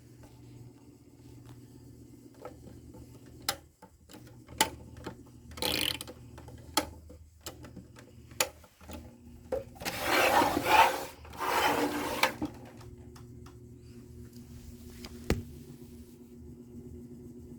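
A 1986 GoldStar FD-362 electric fan's motor humming steadily, its hum shifting a couple of times, with a series of sharp clicks. Two stretches of loud rubbing, scraping noise stand out, the longer one about ten seconds in.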